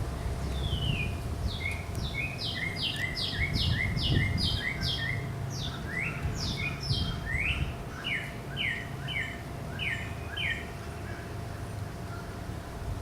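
A songbird singing a long run of quick, repeated down-slurred whistled notes, about two a second, changing its note pattern about halfway through, over a steady low rumble.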